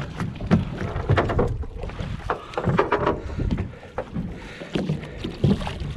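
A small fishing boat on the sea: water slaps and knocks irregularly against the hull, a few times a second, over a steady low rumble.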